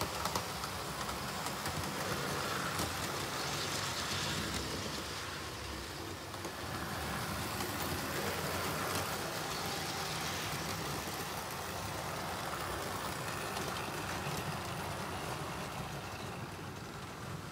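00 gauge model trains running around a layout: a steady whirr of their electric motors with the rumble of metal wheels on the track.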